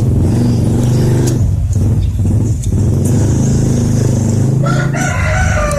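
A small engine runs steadily with a low, even hum. A rooster starts crowing about three-quarters of the way through.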